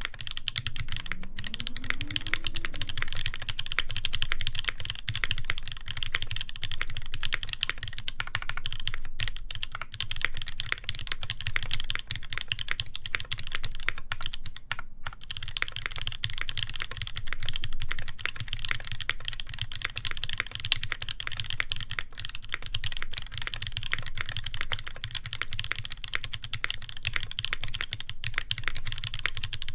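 Continuous typing on an Iron180 custom mechanical keyboard with a full brass plate, GMK keycaps and Moss switches lubed with Tribosys 3204: a dense, steady stream of keystrokes, briefly broken twice.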